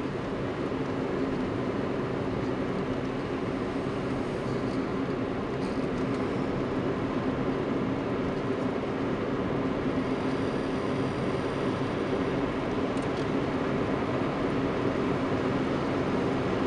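Steady engine and tyre noise heard inside a car's cabin while cruising along the highway, a low even drone that grows slightly louder toward the end.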